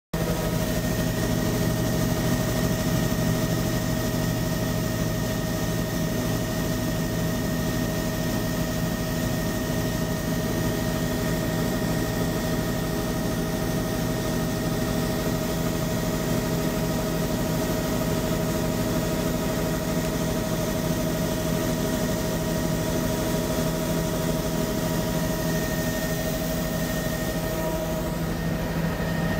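Aircraft engine running at a steady cruise, heard from inside the cabin as a constant loud drone with an unchanging pitch.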